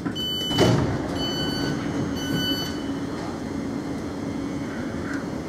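Thameslink Class 700 train's door-closing warning: three short, high beeps about a second apart, with a loud thump about half a second in as the sliding doors shut. A steady low electrical hum from the train follows.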